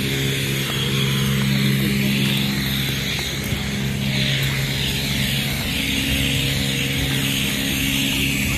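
Propeller aircraft engine running with a steady drone that holds one pitch, with a hiss over it that grows stronger about halfway through.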